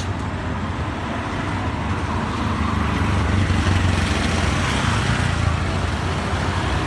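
Street traffic: a steady rumble of engines and road noise that swells a little in the middle.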